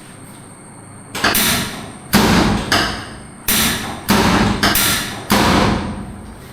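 A series of about seven sharp thumps, mostly about two-thirds of a second apart, each hitting suddenly and dying away over about half a second.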